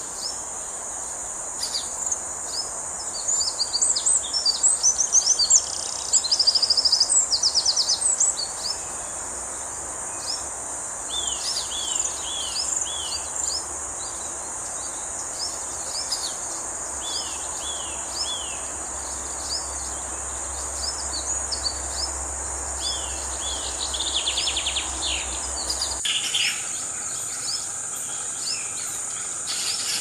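A small hawk calling in repeated short series of three or four sharp falling notes, among busy quick high chirping, over a steady high insect buzz.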